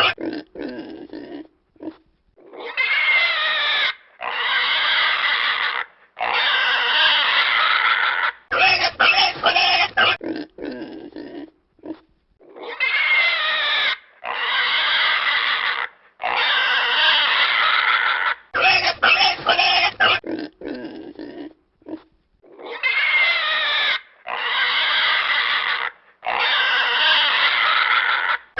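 Domestic pig squealing and grunting: a quick run of short grunts, then three long high squeals, the same sequence repeating about every ten seconds as a loop.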